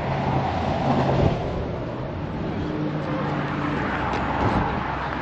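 Car running at road speed: steady road and engine noise with a low engine drone.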